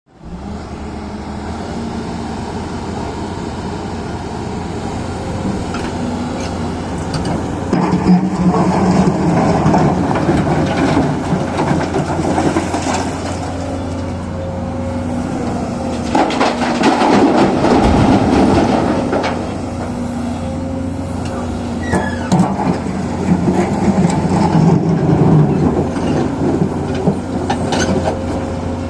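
Excavator's diesel engine running steadily, louder three times as it works under load, with scattered knocks.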